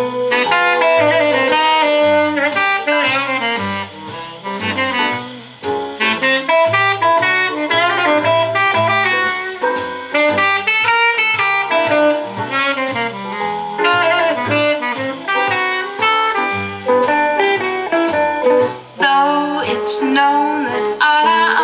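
Instrumental jazz break: a horn-led melody over a steady bass line, played from CD through a 6B5 single-ended valve amplifier and loudspeaker.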